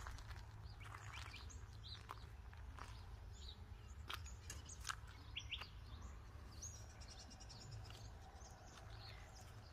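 Faint small birds chirping on and off, with a quick trill about seven seconds in, over a low steady rumble.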